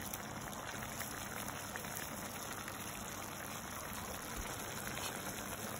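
Mushrooms, carrots, capsicum and greens sizzling in olive oil in a pan while being stir-fried: a steady hiss with fine crackles.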